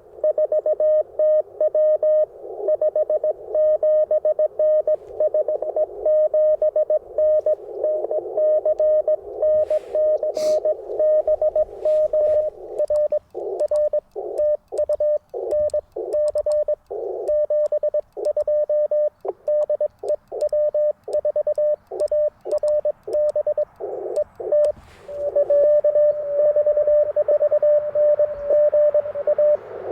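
Morse code (CW) from an Icom IC-705 ham transceiver: a steady tone near 600 Hz keyed rapidly in dots and dashes over receiver hiss, the hiss dropping away between the elements through the middle stretch. A sharp click sounds about ten seconds in.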